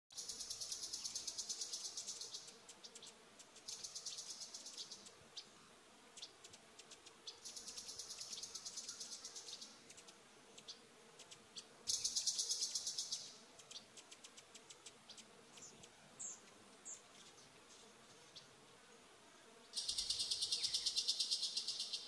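Wildlife calls: a rapid, high-pitched buzzing trill repeated in five bursts of about two seconds each, with scattered short chirps and a few quick falling chirps between them.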